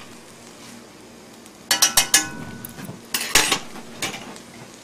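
Clinking and clattering of kitchen utensils and dishes: a quick burst about two seconds in with a brief ring, another about a second later, and a fainter clink near the end.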